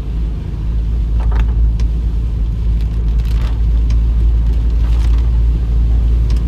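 Car driving on a rain-soaked road in heavy rain, heard from inside the cabin: a steady low rumble of engine and tyres under an even hiss of rain and wet road.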